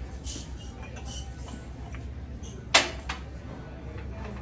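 Glassware being set down on a shelf: one sharp clink a little past halfway, followed by a lighter tap, over a low steady background hum.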